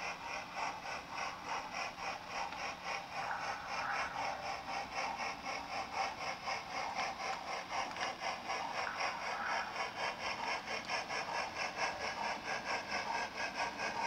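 Model narrow-gauge steam locomotive's sound system chuffing slowly and evenly as the engine creeps forward, about two to three beats a second.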